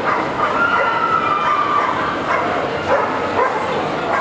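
Dogs barking and yipping over the steady din of a crowded show hall, with one long drawn-out whine near the start.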